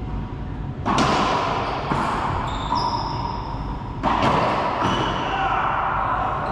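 Racquetball rally: loud, sharp cracks of racquets striking the ball, about a second in and again about four seconds in, with smaller ball smacks off the walls and floor between, all ringing in the court's hard-walled echo. Short high sneaker squeaks on the hardwood floor come around the middle.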